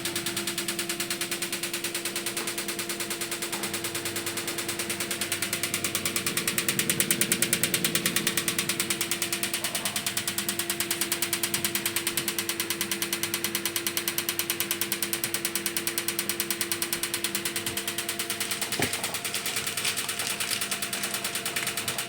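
LG washing machine running with a steady motor hum and a fast, regular knocking on every turn, the unexplained knock whose cause is being sought. It grows louder for a couple of seconds about a third of the way in, and one sharp click stands out near the end.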